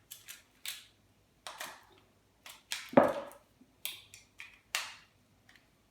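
Short clicks, scrapes and knocks of a screwdriver and hands working on the Phillips screws that hold the motor in a meat slicer, with one heavier knock about three seconds in.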